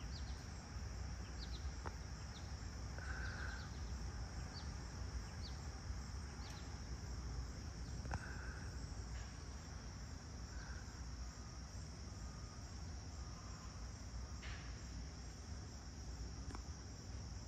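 A steady high-pitched chorus of crickets, with a few short high chirps from birds scattered through it and a steady low rumble underneath.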